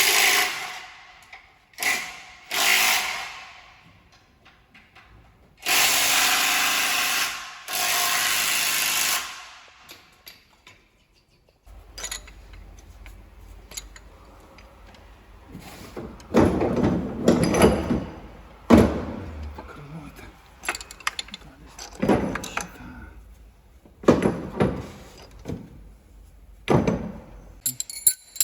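A power tool runs in several short bursts, the longest two steady runs of about a second and a half each. Scattered knocks and rattles of tools being handled follow.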